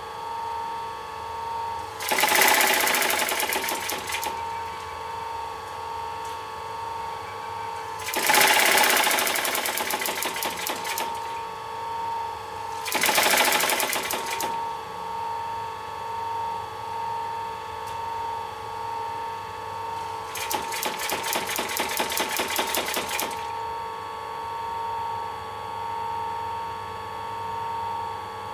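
Industrial sewing machine stitching through cushion upholstery fabric in four runs of rapid stitching, each a couple of seconds long, with pauses between them while the fabric is repositioned. A steady hum continues underneath throughout.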